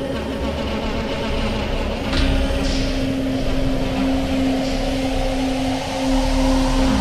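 Dark background music: a steady low drone held on one note over a deep rumble, with occasional swells of hiss.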